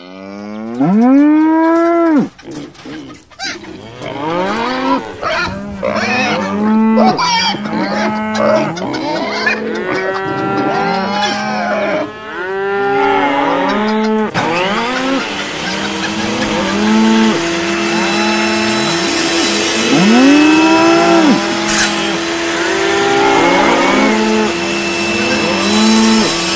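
Cattle mooing, many long overlapping calls from a herd, one loud call right at the start. About halfway through a steady hum and a background hiss join under the calls.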